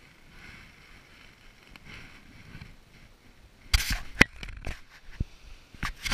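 Faint steady wash of ocean surf. About four seconds in, a run of sharp knocks and clicks close to the microphone takes over and is much louder than the surf.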